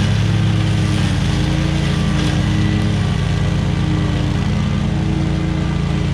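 Small petrol engine of lawn-care equipment running steadily at an unchanging speed.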